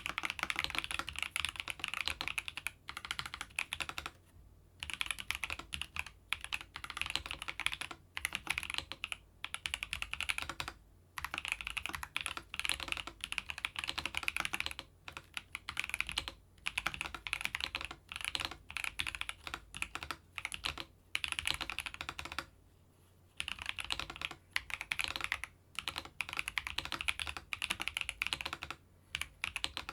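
Typing on a Keychron V3 Max mechanical keyboard with banana linear switches: quick runs of key clicks and clacks, broken by short pauses every few seconds.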